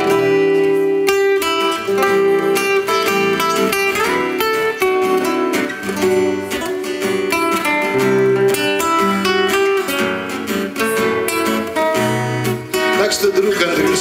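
Song music led by acoustic guitar, with long held backing tones under the guitar notes.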